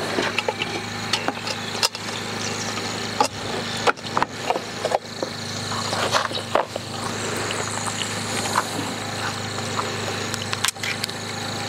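Scattered metal clinks and knocks as the ash-covered cast-iron Dutch oven lid is lifted off with a lid lifter and handled, over a steady hum.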